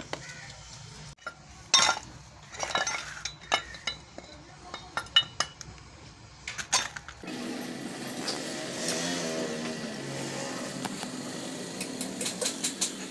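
Metal parts of a dismantled AC compressor clinking and knocking together as they are handled, a string of sharp clanks for about the first seven seconds. Then the sound changes abruptly to a steady background din, with a few light clicks near the end.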